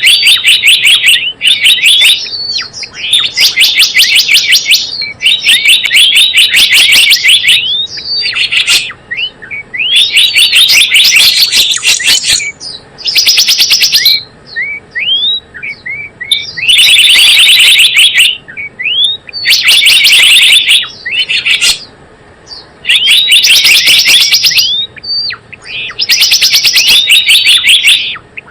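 Recorded lure call of the gelatik bloong: loud bursts of rapid, high chirping trills, each one to two seconds long, repeated with short gaps, with short rising chirps in between.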